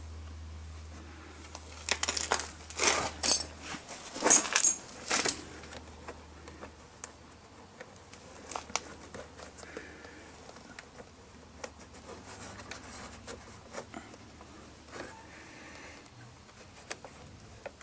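Small bolts, washers and nuts being handled by hand. A cluster of sharp metal clicks and clinks comes a few seconds in, then fainter scattered ticks and rustles as the hardware is fitted through the rubber mud flap.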